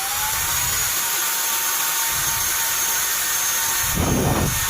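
Cordless vacuum cleaner motor running, a steady rush of air under a high whine. The whine rises in pitch at the start as the cleaner is switched up to its high setting. The rebuilt lithium battery pack holds full power, and there is a brief louder rush of air about four seconds in.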